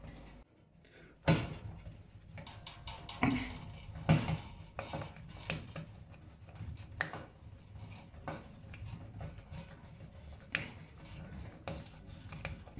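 Light metallic clicks, taps and scrapes of a screw being driven to fix the mounting plate of a replacement oven heating element, with a few sharper knocks in the first few seconds and smaller irregular ticks after.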